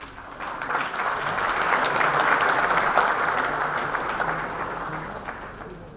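Audience applauding, swelling over the first couple of seconds and tapering off near the end.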